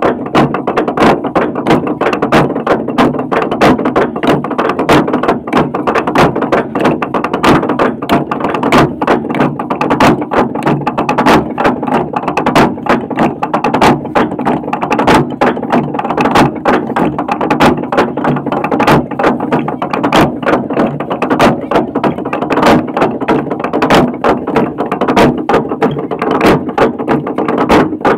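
A giant hollowed-log slit drum being pounded by many men with heavy wooden beaters at once: a dense, unbroken clatter of hollow wooden knocks.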